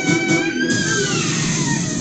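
Dance music playing out on a long held note that slides down in pitch in the second half.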